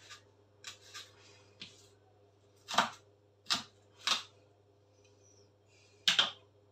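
Kitchen knife chopping leeks on a wooden cutting board: irregular single chops, the loudest three close together in the middle and a quick double chop near the end.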